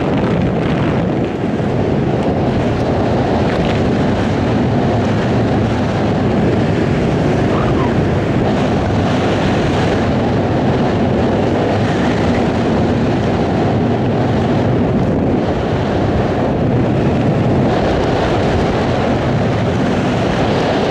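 Steady, loud wind rushing over the microphone of a skydiver's camera under a newly opened parachute.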